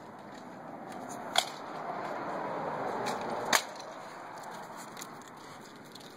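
A squawking chicken dog toy being squeezed in a dog's mouth, giving a long airy wheeze that swells and fades over a couple of seconds, with two sharp clicks about two seconds apart.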